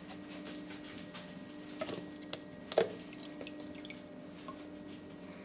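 Water dripping and small wet plastic clicks as the riser tube with its slotted distributor basket is drawn out of a water-filled DI resin tank, with a few sharper ticks near the middle.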